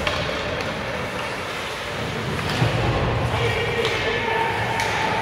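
Ice hockey play in an echoing indoor rink: sharp clacks of sticks and puck every second or so and a thump about halfway through, over voices from the stands.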